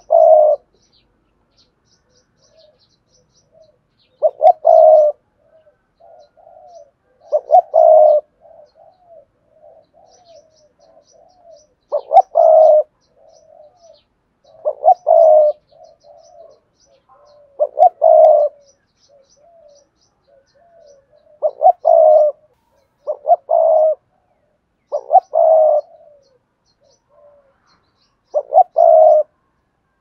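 Spotted dove cooing: about ten loud, short coo phrases a few seconds apart, with softer low coos between them.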